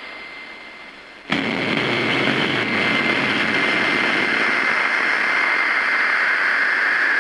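Steady rushing static-like noise with a thin high whine through it, jumping suddenly louder about a second in.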